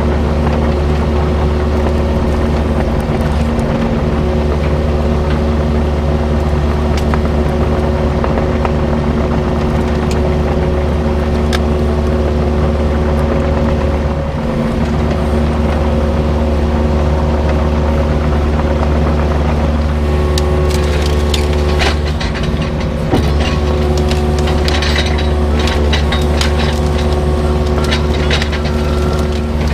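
Excavator diesel engine running at a steady speed, with scattered knocks and rattles coming in from about twenty seconds in.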